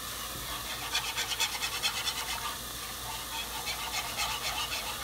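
Wire whisk scraping quickly and rhythmically against the bottom of a pan as a cream sauce is whisked.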